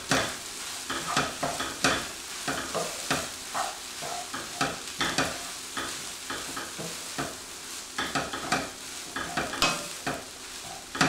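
Wooden spatula stirring and scraping cabbage rice with fresh cut tomatoes in a frying pan over a gas flame. A steady sizzle of frying runs under irregular scraping strokes, about one every half second to a second.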